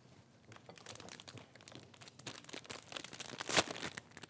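Crinkling and rustling of a food packet being handled, with small irregular clicks, and one louder sharp crackle about three and a half seconds in.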